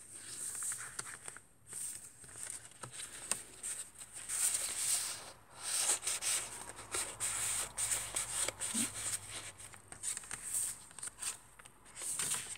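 Paper rustling and sliding as the pages of a handmade junk journal are handled and turned and a paper tag is drawn from its pocket, coming in irregular spells with short pauses and small clicks.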